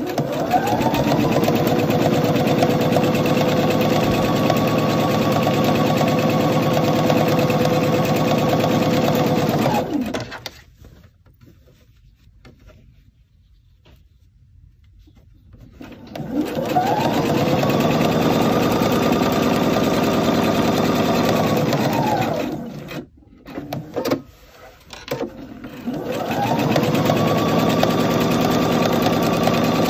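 Electric sewing machine stitching a seam. The motor whine rises in pitch as it speeds up, then holds steady for about ten seconds and stops. After a pause it runs again, breaks off into a few short bursts, then runs steadily once more.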